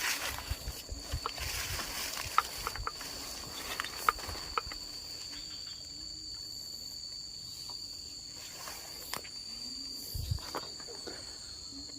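Steady high-pitched insect chorus of crickets, holding two constant tones throughout. Scattered clicks, knocks and low thumps come through it, busier in the first few seconds and again near the end.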